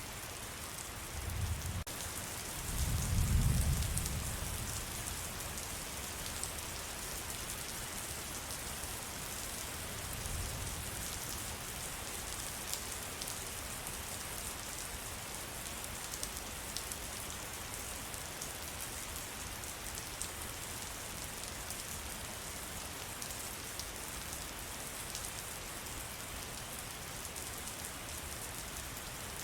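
Steady rain falling in a forest: an even hiss dotted with individual drops ticking. A few low rumbles come through, the loudest about three seconds in and a fainter one about ten seconds in.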